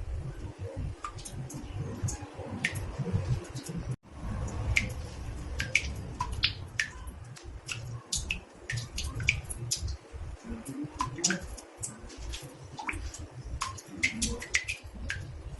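Water drops falling into a bathtub: irregular drips, often several a second, each a short high plink, over a low rumble. The sound cuts out for an instant about four seconds in.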